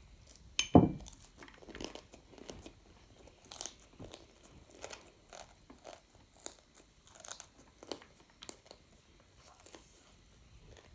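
A child chewing and slurping a big mouthful of stir-fried noodles, with short, irregular wet mouth sounds about every half second. There is a single loud knock just under a second in.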